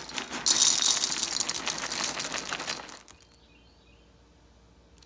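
Scrambled eggs with milk and bell peppers sizzling and crackling in a hot frying pan, cutting off abruptly about three seconds in.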